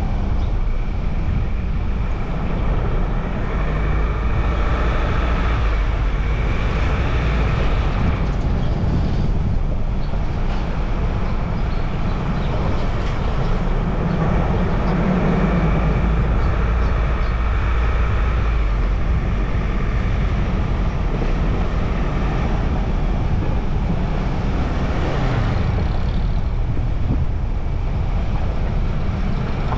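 Steady road noise of a car driving: engine and tyre noise.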